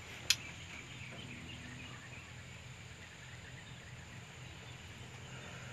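Quiet rural outdoor ambience with faint bird calls, and one sharp click shortly after the start.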